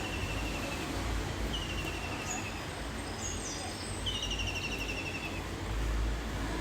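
Steady rain hiss with a songbird singing short trills of rapid notes that fall slightly in pitch, three times, and a few brief high chirps between them.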